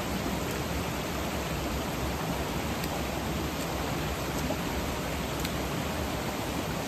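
Fast-flowing stream or river water rushing steadily.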